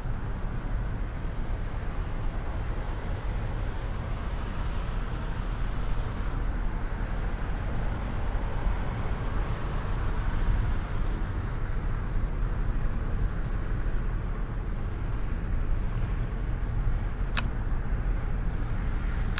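Steady rumble of a car's tyres and engine while driving along a snowy road, heard from inside the cabin. A single sharp click comes near the end.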